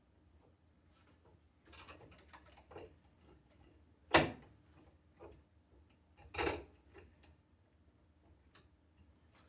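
Light clicks and knocks of door-lock hardware being handled and fitted, with two louder sharp knocks about four and six and a half seconds in.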